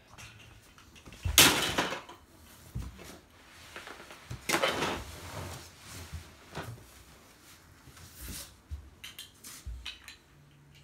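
Plastic toys and a box clattering and rustling as a small child handles them, with two louder rattling bursts and scattered knocks.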